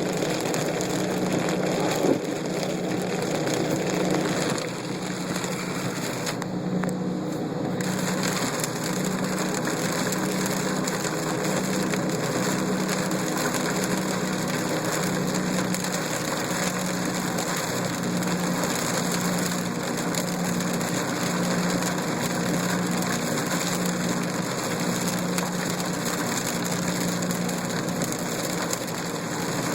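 Car engine idling, heard from inside the cabin, under a steady wash of rain noise, with a hum that swells and fades at a regular pace. One sharp knock about two seconds in.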